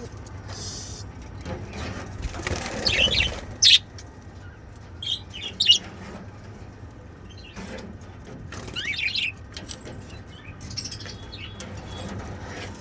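Pet budgerigars chirping in short, scattered calls, with a brief rustling burst about two and a half seconds in.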